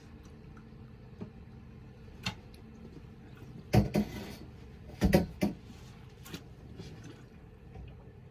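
Several short knocks and clatters from gear being handled aboard a boat, loudest in two quick clusters about four and five seconds in.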